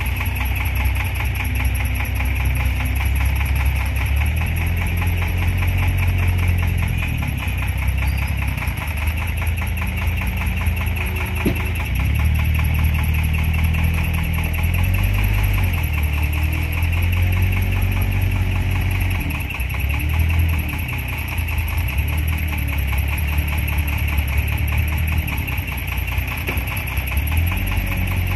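Small Komatsu wheel loader's engine running under work, its pitch rising and falling again and again as it digs into the sand pile and lifts the bucket, with one sharp click about halfway through.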